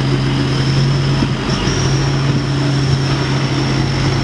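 Heavy diesel engine of a loaded dump truck running steadily under load as the truck crawls through deep mud, with a thin, steady high tone above it.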